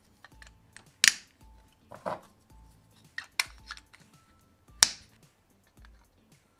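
Hard plastic parts of a diecast model car clicking and knocking as they are handled and fitted together. There are a handful of sharp clicks, the loudest about a second in and another near five seconds, over soft background music.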